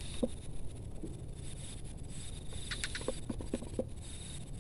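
Outdoor ambience of a steady high insect drone over a low wind rumble, with a brief run of short chirps about three seconds in.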